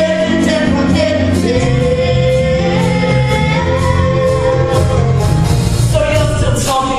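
Musical theatre number: voices singing over an accompaniment with a steady bass line, one long note held through the middle.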